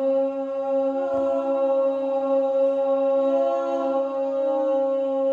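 A group of voices holding long, steady sung notes together, blending into one continuous vocal drone in a group vocal meditation.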